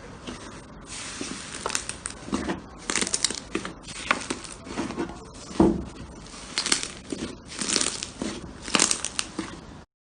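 Slime being worked by hand, giving irregular crackling, crinkly pops in bursts every half second or so. The loudest burst comes about halfway through, and the sound cuts off just before the end.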